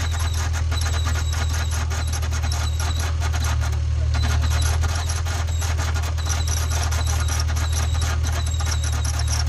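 Acura NSX V6 running, with a steady high squeal over rapid chirping from the accessory belt and pulleys. It is the noise of a slipping belt, which they suspect comes from the idler pulley.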